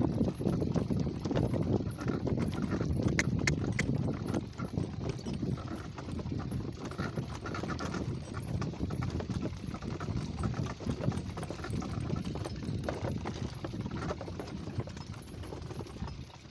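A donkey's hooves clip-clopping quickly on a dirt track as it pulls a wooden cart at speed, with the cart's harness and frame rattling along under it.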